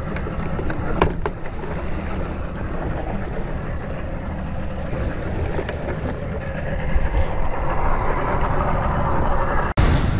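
Small boat out on a rough, choppy sea: wind buffeting the microphone and water rushing and slapping along the hull over a steady engine rumble.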